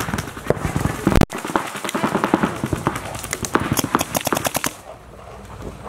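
Paintball markers firing rapid strings of shots, fast irregular pops from more than one gun, until the firing stops near the end.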